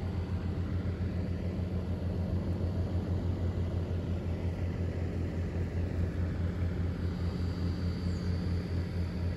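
Steady low mechanical rumble with a fast flutter, running at an even level throughout. A faint, thin high whine joins about seven seconds in.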